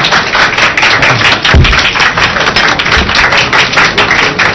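Audience applauding, a dense patter of many hands clapping, with a couple of low thumps about one and a half and three seconds in.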